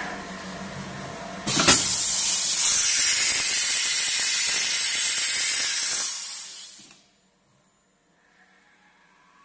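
CNC machining centre running with a steady hum, then a sudden loud hiss of compressed air about a second and a half in, lasting about five seconds before cutting off, as the spindle works the automatic tool changer.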